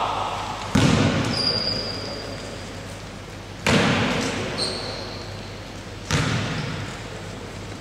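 Basketball bouncing on a wooden gym floor: three single bounces a few seconds apart, each echoing in the hall. Two brief high squeaks come between them.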